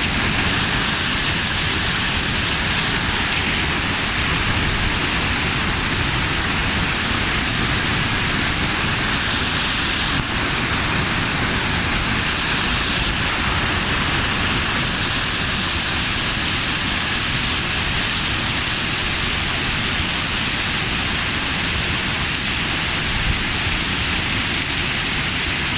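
Waterfall water pouring and splashing: a steady, loud rush of water noise.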